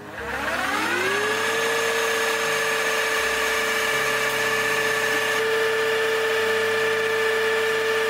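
Kärcher FC cordless wet floor cleaner switched on in its parking station for the roller self-cleaning cycle. The motor spins up with a rising whine over about the first second, then runs at a steady pitch.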